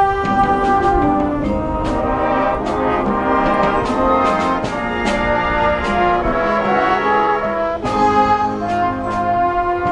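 High-school wind band playing live, brass-led with trumpets and trombones over a steady beat of drum and cymbal strokes.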